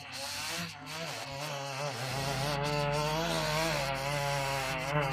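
Chainsaw engine running, its pitch wavering up and down as the revs change.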